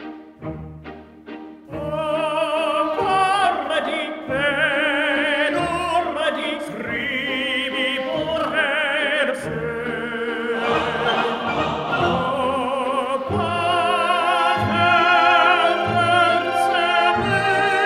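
Background music: operatic singing with vibrato over an orchestra, coming in about two seconds in after a few short, fading notes.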